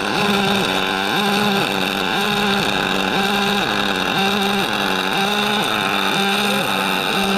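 Pulse MIG welding arc on aluminium running a bead: a steady pitched hum over a higher hiss, swelling and dipping in an even rhythm about three times every two seconds.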